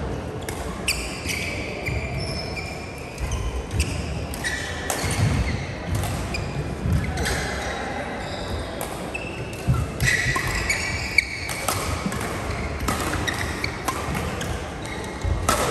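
Badminton play: rackets hitting the shuttlecock in sharp, irregular smacks, with sneakers squeaking on the court floor and the thud of footfalls.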